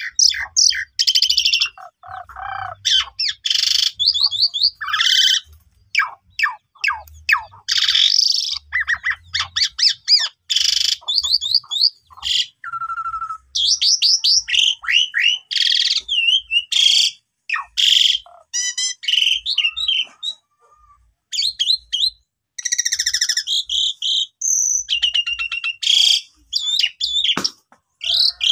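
Asian pied starling (jalak suren) singing in full, loud song: a long, varied run of whistles, rapid chattering trills and harsh squawky notes, with one brief pause about twenty seconds in.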